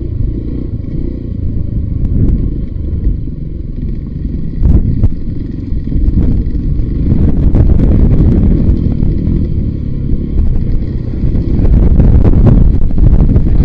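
Voge 300 Rally single-cylinder motorcycle riding down a rough off-road trail, the engine running under a heavy low rumble of wind on the microphone, with scattered clattering knocks from the bike over the rough ground. It gets louder about seven seconds in and again near the end.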